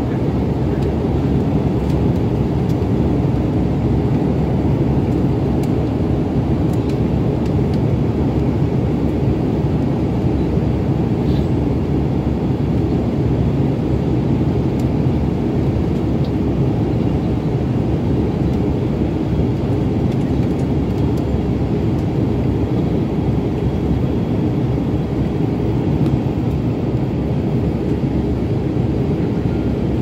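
Airliner cabin noise in flight: the steady rush of the engines and the airflow, heard inside the passenger cabin, deep and unchanging.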